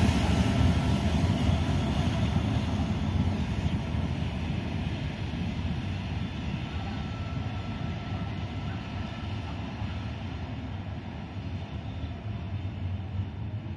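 Diesel-electric freight locomotives rumbling as the train moves away, the sound fading steadily.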